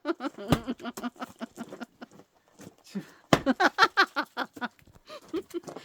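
An axe strikes a firewood log twice, about three seconds apart, each a sharp heavy blow. Voice-like vocal sounds run around the blows.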